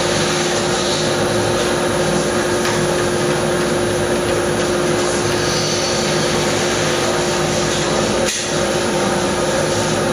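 Drilling machine running steadily, its bit cutting into a magnesium VW engine case to enlarge the stripped oil pressure switch hole oversize for a thread repair insert.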